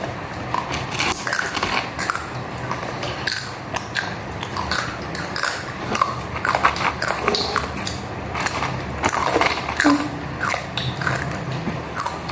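Close-up eating sounds: food being bitten and chewed, a dense run of short, sharp crunches at an irregular pace.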